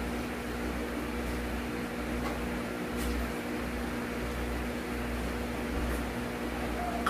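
Steady electric hum of a running appliance, with a few faint clicks.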